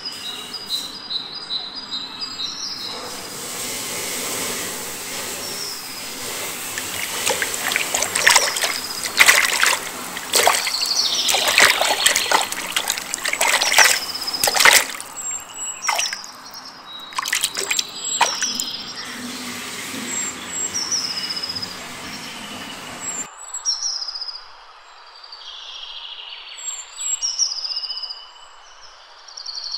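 Water splashing hard and irregularly as a hooked fish thrashes in a small waterhole and is hauled out, with birds chirping. About 23 seconds in the splashing stops suddenly and only the bird chirps remain.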